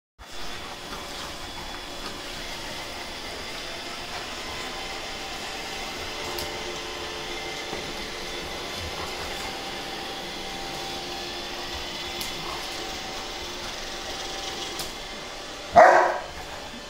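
A steady mechanical hum fills the room, with a few faint clicks, while two large dogs wrestle. Near the end one dog gives a single loud bark.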